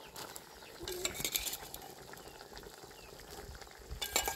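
Metal spoon clinking against a steel bowl and a cooking pot as boiled chickpeas are scooped out and tipped into simmering gravy. There are a few light clinks, a cluster about a second in and louder ones near the end.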